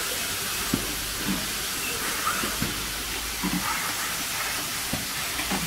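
Steady hiss of a robotic car-body assembly cell, with short knocks and clunks at irregular intervals from the robots and fixture working on a sheet-metal part.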